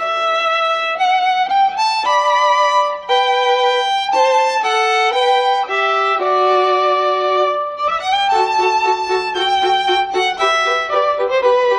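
Background music: a violin-like melody moving from note to note, with a lower accompanying line joining about eight seconds in.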